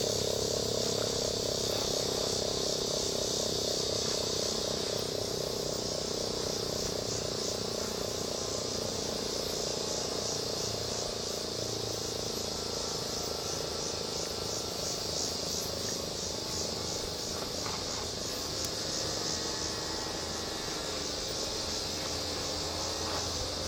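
Insects, crickets by their sound, chirping in a steady high pulsing drone. A lower hum fades out in the first few seconds.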